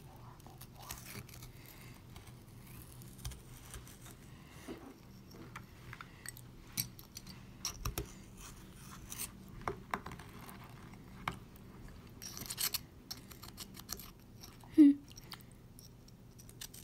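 Small plastic pick scraping and poking at a softened dig brick in water in a glass dish: scattered small scratches and clicks. A brief louder squeak comes near the end.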